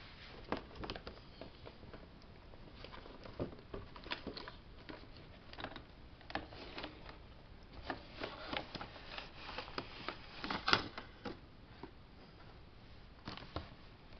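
Cardboard box with a clear plastic window being handled and pulled open by hand: irregular crinkling, scraping and tapping of card and plastic, with a louder snap about ten and a half seconds in.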